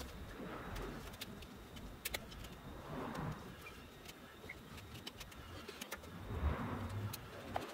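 Light clicks and taps of metal and plastic copier fuser parts being handled as an end bracket is fitted onto the fusing-belt sleeve unit, with soft rustling handling noise between them.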